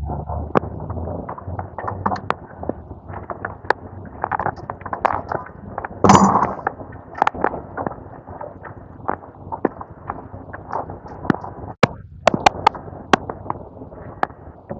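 Nissan Y61 engine running with irregular sharp knocks and clicks over a steady low rumble, loudest about six seconds in; the owner puts the noise down to a screw that fell onto an open piston.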